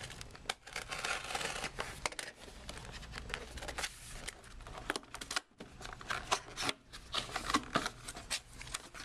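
A sealed trading-card box being opened by hand: its wrapping torn and crinkled, with a quick run of clicks and rustles as the cardboard is handled.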